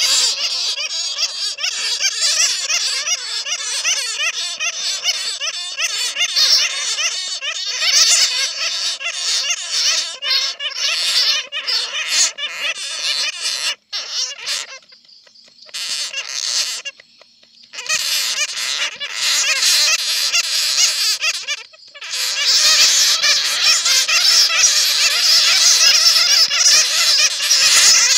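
Many bats squeaking and chattering together in a dense, continuous chorus of high chirps, recorded from bats caught in a net. The chorus drops to a quieter stretch twice around the middle and grows louder over the last few seconds.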